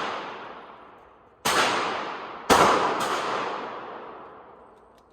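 Three shots from a .45 ACP 1911 pistol, each followed by a long echoing decay. The first comes about a second and a half in, then two more about half a second apart around the three-second mark. At the start, the echo of a shot fired just before is still dying away.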